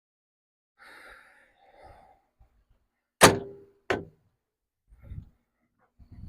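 Two sharp metallic clanks about 0.7 s apart, the first louder with a brief ringing tone, then a few faint low thumps, as someone climbs onto the steel operator platform of a mini skid steer.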